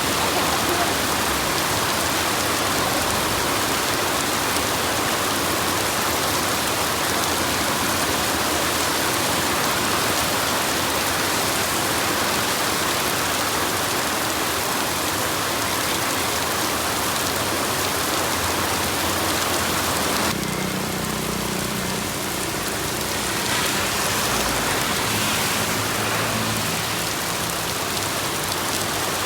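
Steady rain falling, a dense even hiss of drops. About two-thirds of the way in the sound shifts abruptly: the hiss thins and a faint low hum comes in under it.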